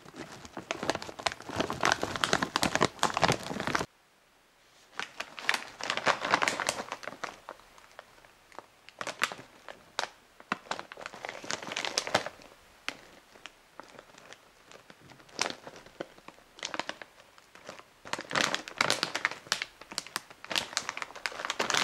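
Foil snack bags crinkling and rustling as they are handled, in irregular bursts, with a sudden short gap about four seconds in.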